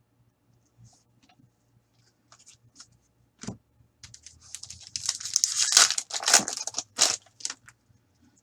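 A foil pack of trading cards being torn open and crinkled, loudest from about four and a half to seven and a half seconds in, after a few small rustles and a short knock.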